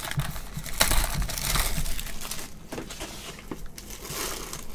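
Plastic shrink wrap on a trading card box crinkling as it is handled and pulled off, an irregular crackle that is louder in the first couple of seconds.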